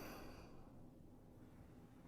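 The last of a snoring man's soft exhaled breath fading out in the first half second, then near silence in the pause before the next snore.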